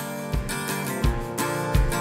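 Background music: strummed acoustic guitar over a steady low beat, about one thump every 0.7 seconds.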